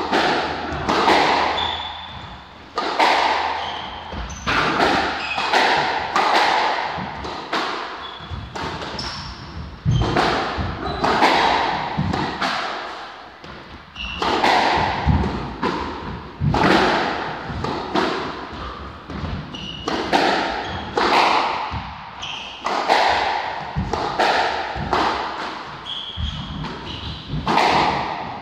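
Squash rally: the ball is struck by rackets and smacks against the court walls again and again, each hit echoing in the enclosed court, with short squeaks from the players' shoes on the wooden floor.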